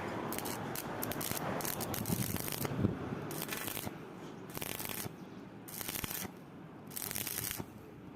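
Rasping, crackling metalwork noise on a door lock fitting, coming in short bursts of about half a second with pauses between them in the second half.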